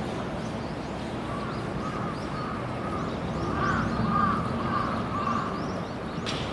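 Crows cawing in a run of short calls starting about a second in, loudest near the middle, over faint chirping of small birds.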